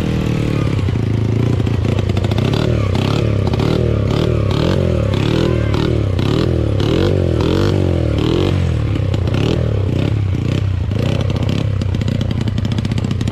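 Dirt bike engine revving up and down in quick repeated bursts, about two a second, while the bike is bogged down in deep mud, then settling near the end.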